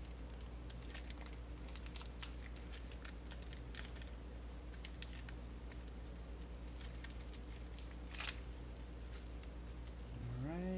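Plastic parts bag crinkling and crackling as it is worked open, in light scattered crackles, with one sharper click about eight seconds in. A steady low hum runs underneath.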